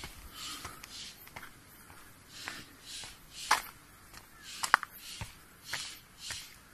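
Footsteps climbing gritty concrete steps: short scuffs about twice a second, with a few sharper clicks as shoes strike the step edges.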